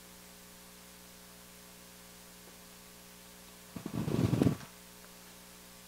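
Steady electrical mains hum through a pause in speech, with a brief low muffled sound a little under four seconds in.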